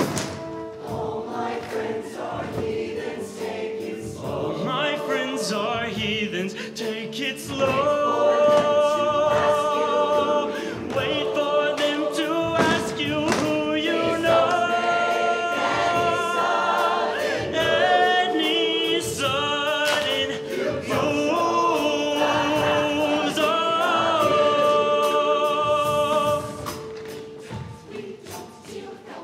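Show choir singing in full harmony over live band accompaniment, in long held notes with vibrato. It swells louder about eight seconds in and falls away a few seconds before the end.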